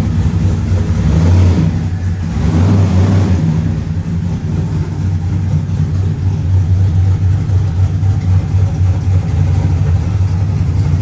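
Camaro's LS1 V8 running at a steady, loud idle.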